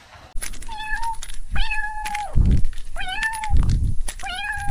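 A cat meowing four times, each meow rising and then holding a steady pitch, with dull low thumps between the meows.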